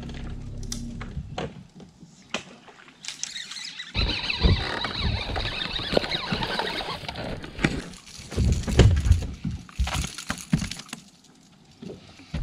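Water splashing as a hooked bass thrashes at the surface beside the boat, with knocks and heavy thumps on the boat. The steady hum of a trolling motor stops about a second and a half in.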